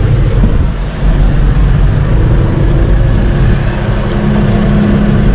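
Diesel engine of harvest machinery running steadily, a loud deep rumble with a steady hum that grows stronger about three seconds in.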